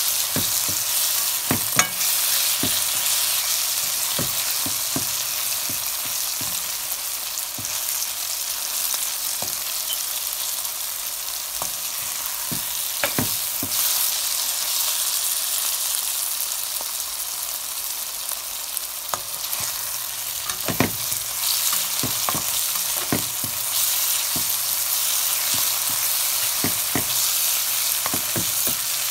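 Chopped onion, bell peppers, corn and peas sizzling in hot oil in a frying pan with a steady hiss. A slotted spatula stirs them, scraping and tapping the pan at irregular moments, with the most taps about 20 to 24 seconds in.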